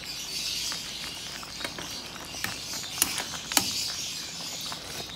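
Tomato-sauce stew simmering in a pan with a steady hiss and small pops, while a spoon clicks against the pan a few times.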